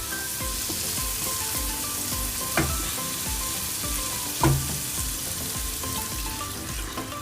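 Onion, garlic and ground-spice masala sizzling steadily in its separated oil in a cooking pan as a little water is added and stirred in. Two short knocks of a utensil on the pan come a couple of seconds apart, near the middle.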